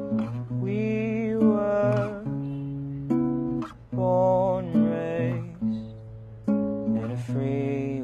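Acoustic guitar playing plucked chords over a steady bass line, with wordless sung vocal phrases over it.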